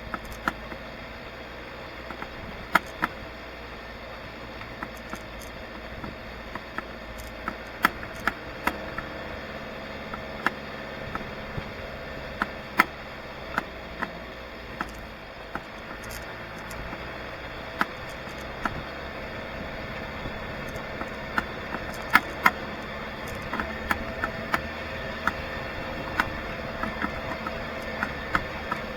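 A vehicle engine running steadily, with irregular sharp knocks and rattles over it.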